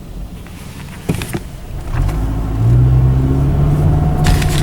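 Car engine and road noise heard from inside a moving car. About two seconds in it grows louder, with a low engine hum that rises slightly in pitch and then holds steady; a couple of brief clicks come a little after a second in.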